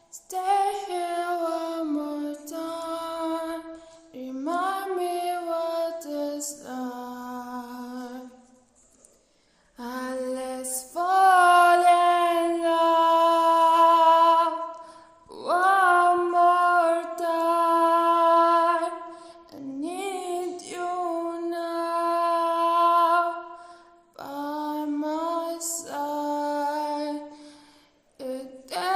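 A female voice singing unaccompanied: phrases of long held notes with short pauses between them, and nothing playing in the gaps.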